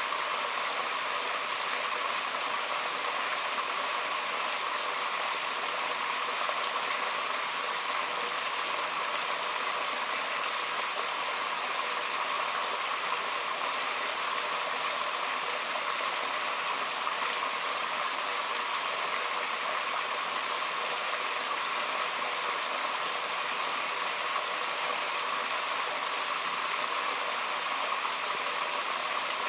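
Steady rushing of a mountain stream, an even wash of water noise with no breaks.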